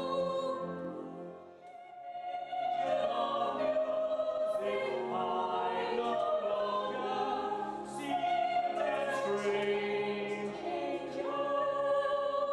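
Vocal ensemble singing in harmony with long held notes. The sound dips briefly about two seconds in, then the voices come back in.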